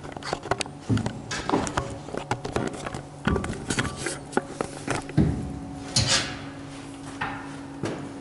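Irregular clatter of knocks, clicks and rattles from gear and the handheld camera being handled, over a steady low hum.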